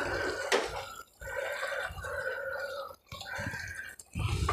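Chicken curry with tomatoes bubbling and sizzling in an enamel pot as it cooks down in its own liquid and is stirred with a spoon, with one short knock about half a second in.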